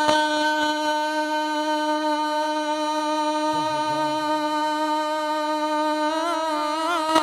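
A man's singing voice holding one long note of a naat into a microphone, steady for about six seconds, then wavering in ornaments near the end.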